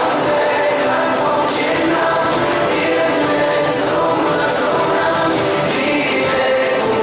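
A choir singing a sustained song, the voices holding notes together.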